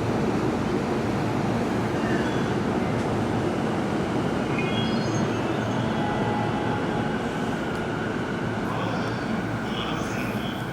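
Electric commuter train pulling out of a station platform and running along the track, a steady rumble with a few brief high wheel squeals, slowly easing as it moves away.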